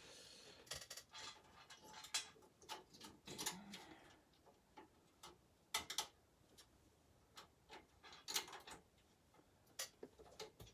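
Faint, irregular clicks and taps of a thin metal I/O shield being pushed and worked into the rear cutout of a computer case, with a brief scrape near the start.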